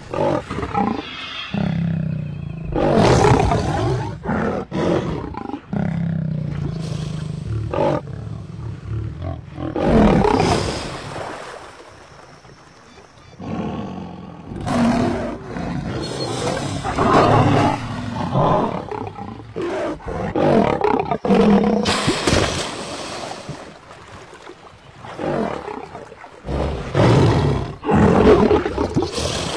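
Male lion roaring and snarling in repeated loud bursts a few seconds apart: a threat display at crocodiles.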